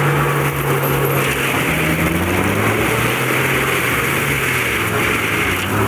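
The large diesel engine of a tracked forestry mulcher running steadily under load, its pitch shifting slightly as it works.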